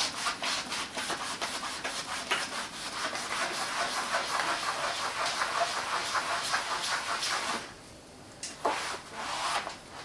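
Wet melamine-foam sponge (a knockoff magic eraser) scrubbing a greasy kitchen wall with quick back-and-forth strokes. The scrubbing stops about seven and a half seconds in, with a couple of short rubs after.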